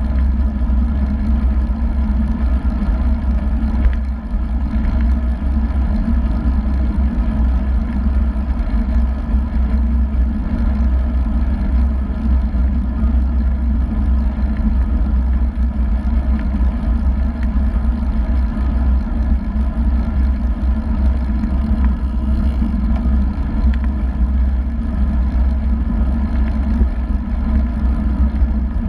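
Wind buffeting the microphone of a bike-mounted GoPro on a road bike riding at about 36 km/h: a loud, steady low rumble.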